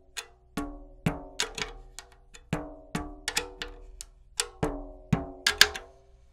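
A new clear Evans head on a 10-inch tom being tapped near the tension rods while it is tuned up with a drum key. A quick series of taps, two or three a second, each a short ringing drum tone that fades fast, the loudest a little past five seconds in.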